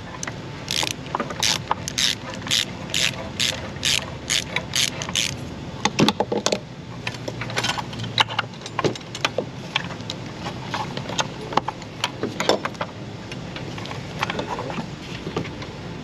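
Hand ratchet clicking in a steady run of about three clicks a second as it backs a tight oxygen sensor out of its threads, followed by scattered irregular clicks and knocks as the socket extension is turned by hand.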